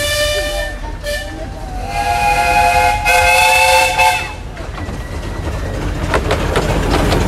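Miniature steam locomotive whistle: a short blast at the start, then a longer steady blast of several tones together about two seconds in. Near the end, the rumble and rail clicks of a steam train passing close alongside.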